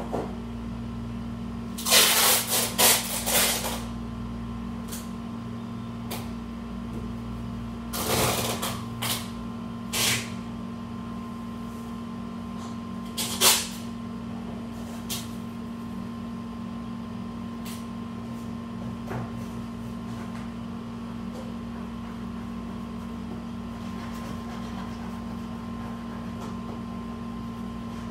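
Rustling and handling noises of things being packed into a large cardboard box, in short bursts: a cluster about two seconds in, more around eight to ten seconds, and a sharp one at about thirteen seconds. A steady low hum runs underneath.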